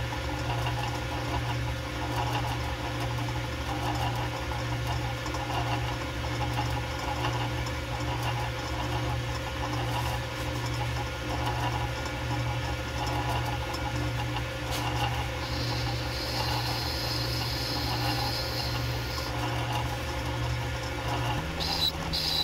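Metal lathe running steadily, its motor and gears humming with the workpiece spinning against the cutting tool. A thin high tone joins for about four seconds past the middle, and the pitch of the hum shifts shortly before the end.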